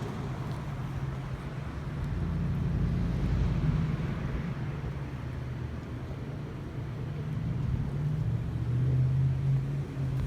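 A vehicle engine running with a low, steady pitched hum, swelling twice.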